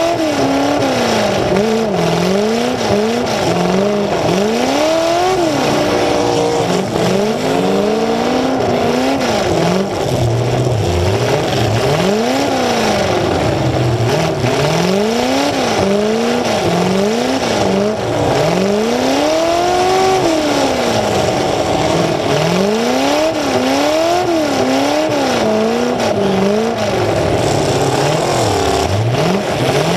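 Full-size demolition derby car's engine, heard close through its open upright exhaust stacks, revving up and falling back over and over, each rise and drop lasting a second or two, as the car accelerates and lets off around the arena.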